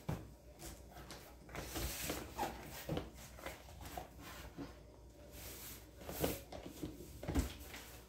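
Scattered plastic clicks and knocks, with some soft rustling, from the parts of an Arno table fan being handled and fitted together.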